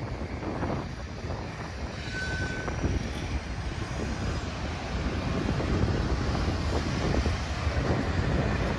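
Norfolk Southern train rolling past with a heavy, low rumble that slowly grows louder, and a brief high wheel squeal about two seconds in. Wind buffets the microphone.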